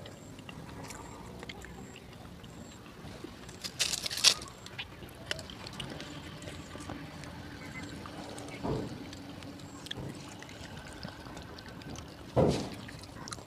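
Close-up eating sounds: a person handling food with her fingers and chewing, with small clicks throughout. There is a loud crisp crunch about four seconds in and two short low sounds later, the second one near the end and loud.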